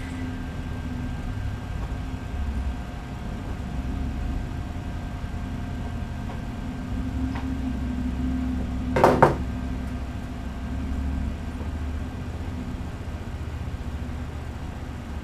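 Steady low room hum, with a brief double knock about nine seconds in.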